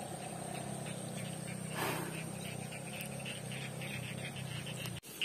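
Quiet, steady outdoor background: a low hum and a thin, high, steady whine, with a brief soft rush about two seconds in. The sound cuts out abruptly near the end.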